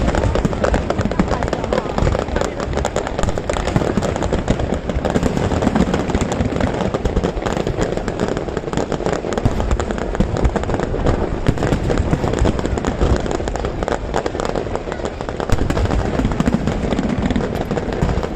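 Fireworks display: aerial shells bursting and crackling in dense, unbroken succession, many bangs a second with no pause.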